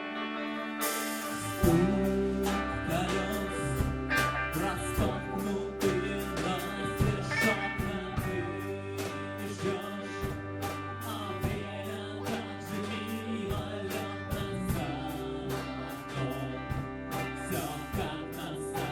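Garage rock band playing a song with electric guitar, bass and drums, and a male voice singing; the drums and bass come in about a second and a half in.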